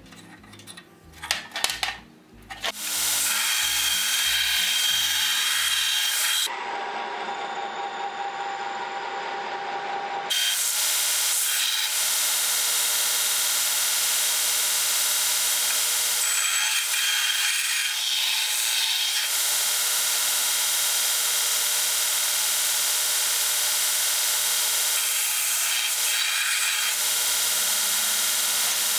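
Vertical belt grinder running, grinding a steel seat iron held in tongs against the belt: a steady hiss that grows louder in stretches where the steel is pressed on. A few light taps of steel being handled come first.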